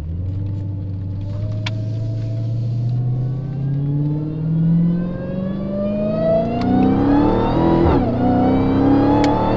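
Dodge Challenger SRT Hellcat's supercharged 6.2-litre Hemi V8 under hard acceleration, heard from inside the cabin. The engine note and supercharger whine rise steadily for about eight seconds, dip briefly at an upshift, then climb again. The whine is loud through a newly fitted Legmaker (LMI) intake.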